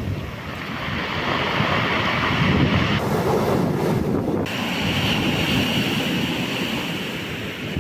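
Stormy sea surf breaking and washing in, in slow swells of hiss, with wind buffeting the microphone.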